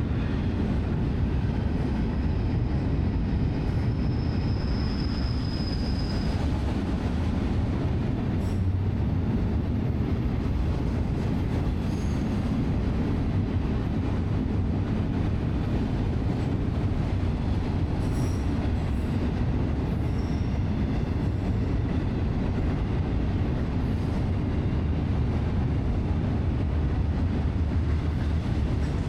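Train running past on the rails with a steady rumble, and a brief high wheel squeal about five seconds in.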